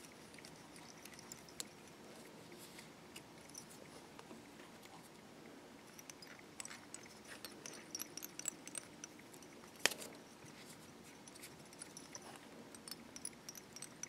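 Faint, scattered small ticks and clicks of fly-tying thread being wrapped from a bobbin to tie down a strip of 2 mm foam on the hook, busier in the middle, with one sharper click about ten seconds in.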